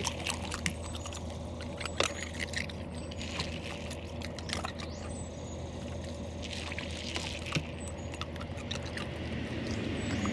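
Great Pyrenees dog licking and lapping at wet ice in a bowl, with scattered sharp clicks of ice cubes knocking and shifting.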